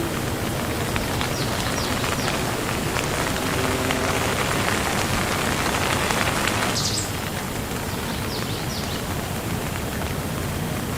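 Steady rain falling, an even hiss of drops; it eases slightly about seven seconds in.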